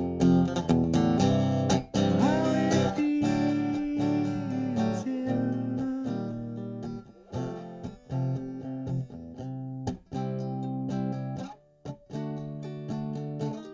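Guitar playing an instrumental passage of the song: strummed chords, with a held lead note that bends in pitch a few seconds in.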